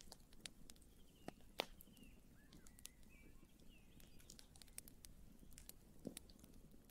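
Faint campfire crackling: scattered small pops and snaps from burning wood, with a louder pop about a second and a half in. A few faint high chirps come in the middle.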